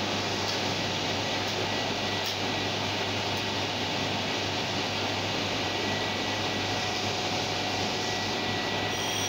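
Heidelberg GTO four-colour offset printing press running: a steady mechanical rush and hum with a faint constant high tone.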